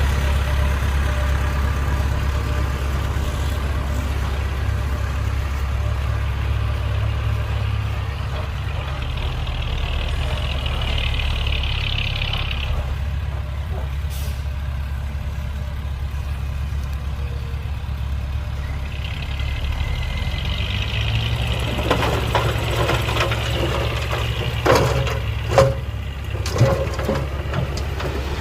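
Heavy diesel construction machinery running steadily, with a hiss twice and a series of loud clanks and knocks near the end.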